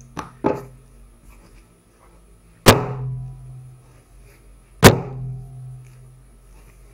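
Wet bread dough slapped down hard onto a wooden worktop twice, about two seconds apart, each a sharp slap with a short low ring after it. Two lighter taps come just before. This is slap-and-fold kneading of a sticky, high-hydration dough to build its gluten.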